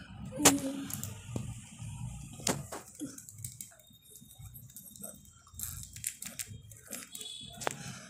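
A few sharp clicks and taps, the loudest about half a second in, with soft budgerigar chirps in between.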